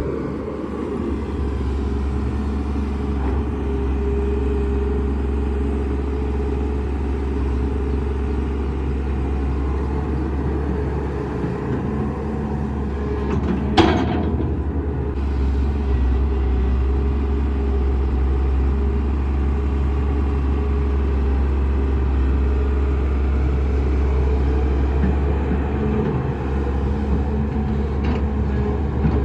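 A Sany 215 hydraulic excavator's diesel engine running steadily with a deep drone. There is one sharp knock about halfway through.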